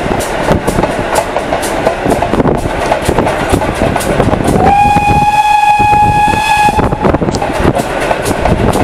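Steam locomotive on the move, its wheels clicking rhythmically over the rail joints, with one steady whistle blast of about two seconds just past the middle.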